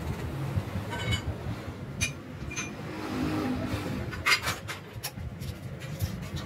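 Workshop background: a steady low rumble with a handful of sharp metallic clicks and clinks, the loudest about four seconds in, as metal is handled around the welding stand.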